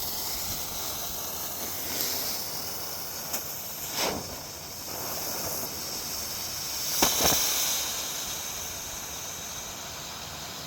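Cobra's Den and White Smoke ground fireworks burning together with a steady hiss, broken by several sharp pops. Single pops come about two, three and four seconds in, and two close together about seven seconds in.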